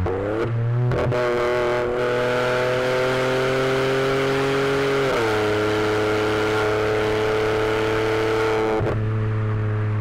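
Turbocharged VW Polo TSI engine with an aftermarket exhaust and stage 2 remap, heard from inside the cabin while accelerating. Its note climbs steadily in pitch, drops at an upshift about five seconds in, climbs again, then eases off near the end as the throttle lifts.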